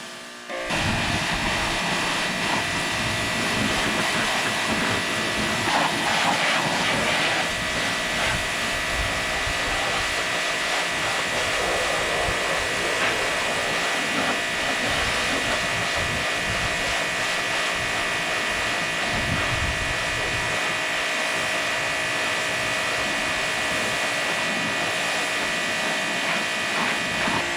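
Ryobi electric pressure washer spraying water in a hissing jet, with a steady high-pitched whine from its motor and pump. It starts suddenly about half a second in and keeps an even level.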